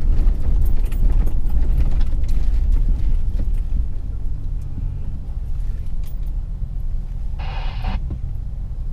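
Car driving slowly down a narrow lane, heard from inside the cabin: a steady low engine and road rumble that eases off about four seconds in. Near the end a short buzzy tone sounds for about half a second.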